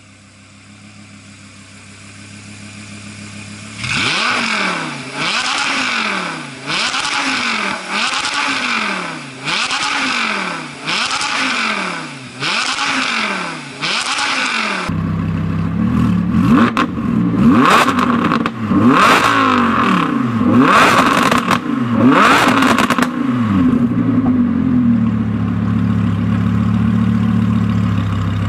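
Audi R8 V10 with an Fi Exhaust catback Valvetronic muffler, valves open, idling and then revved in a regular series of blips, about one every second and a half, each rising and falling in pitch. Halfway through, a second R8 V10 is revved in several quick, sharp blips and then settles back to idle.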